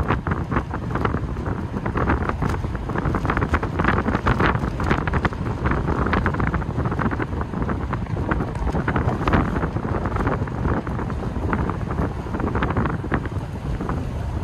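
Wind buffeting the microphone in the open cabin of a moving TVR, in steady gusts over the low running of its V8 engine.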